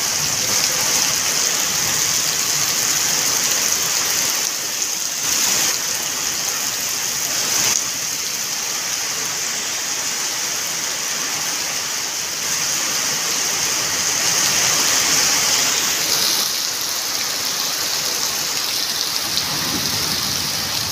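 Heavy rain pouring steadily onto a wet, puddled yard of packed dirt and concrete, with a few brief surges where it comes down harder.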